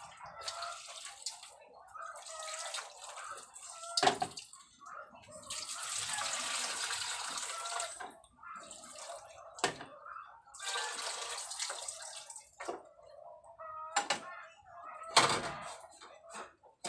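Water pouring and splashing in two spells of a couple of seconds each, with several short, sharp knocks of kitchen utensils in between.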